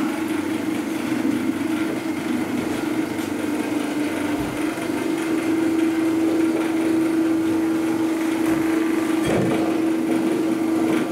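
Electric bagel-forming machine running with a steady motor hum as dough balls are fed through it and rolled into rings.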